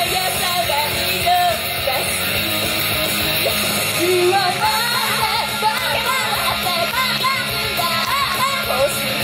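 Female idol group singing live over loud, continuous backing music; the sung melody grows busier about four seconds in.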